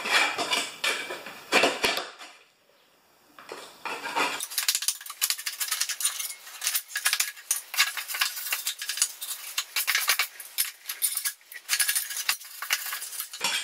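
A hand scraper rasping and clicking against the underside of a lawn mower deck as caked, dried grass clippings are scraped out, in quick irregular strokes, with a short pause about two seconds in.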